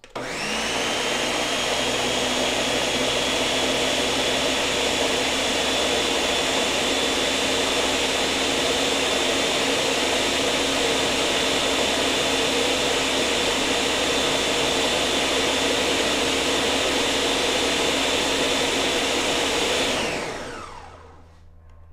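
Countertop blender motor running, puréeing a thick mix of split peas, water and seasonings. It spins up within a moment with a quick rising whine, holds a steady high whine, then is switched off about twenty seconds in and winds down with falling pitch.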